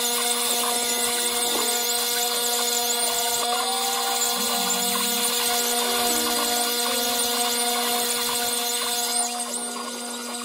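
Small CNC router cutting pink foam board: a steady spindle whine under the shifting, warbling whine of its stepper motors as the bit moves along the path. It drops a little quieter near the end.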